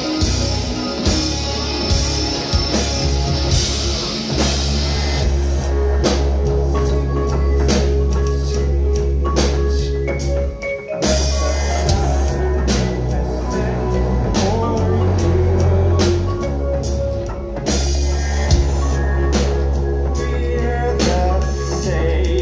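Live rock band playing: drum kit, bass guitar and electric guitar. The band breaks off briefly about halfway through, then comes back in.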